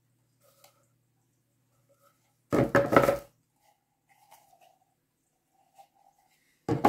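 Hollow vinyl model-kit pieces being handled: a loud, noisy clatter of handling lasting under a second about two and a half seconds in, then a few faint small taps. Near the end, a plastic bag starts rustling.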